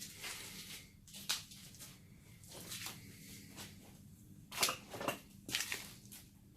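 Irregular rustling and scuffing noises, about six short ones, the loudest in a cluster near the end, over a faint steady hum.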